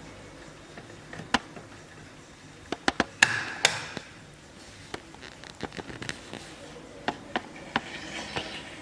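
Irregular sharp clicks and knocks, with a dense cluster about three seconds in that includes a brief metallic rattle, then scattered lighter clicks.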